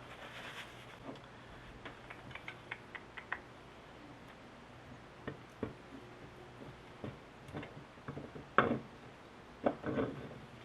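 Scattered small clicks and taps of metal parts and tools being handled during compressor reassembly, with a louder knock about eight and a half seconds in and a couple more near the end.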